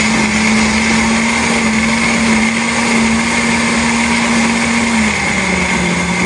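Countertop blender running steadily, puréeing chopped whole lemons with water and sugar. Its motor hum drops slightly in pitch about five seconds in.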